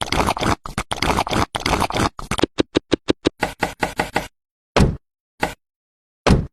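Knocking and scraping from hand work on a miniature house foundation, in abrupt cut-together snippets with dead silence between them: first a run of rapid rustly knocks, then about a dozen quick even strokes, about five a second, then three separate knocks.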